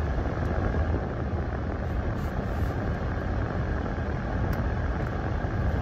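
Steady car-cabin noise from a moving car, mostly low road and wind rumble, with no distinct events.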